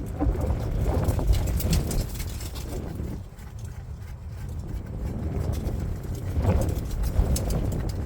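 Scattered knocks and clatter of tools and parts being handled, over a steady low rumble of wind on the microphone.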